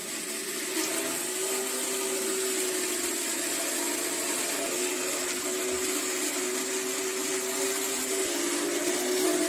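Electric immersion blender running steadily in a metal saucepan, its motor giving a constant whine as it purées diced carrot and beetroot into a reduced vegetable stock to thicken it into a smooth sauce.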